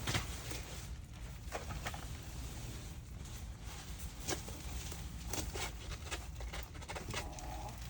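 Scattered light knocks and rustles from kittens being handled among items inside a trailer, over a steady low rumble.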